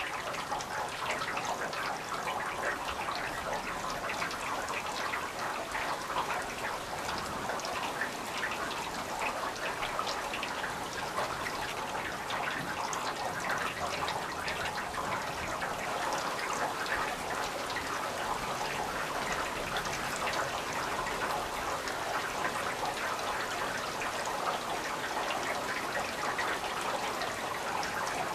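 Steady rain falling, with many small drop impacts heard close by.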